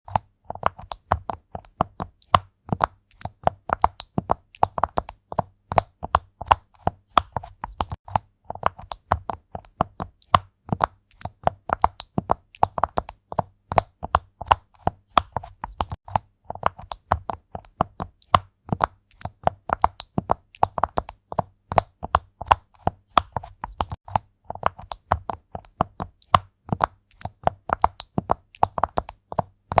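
Fast typing on a jelly keyboard: a dense, uneven run of quick key clacks, several a second, that never stops.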